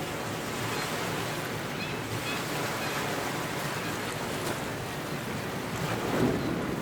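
Harbour ambience: a steady wash of waves and water, with a few faint high chirps about two seconds in and a brief louder swell about six seconds in.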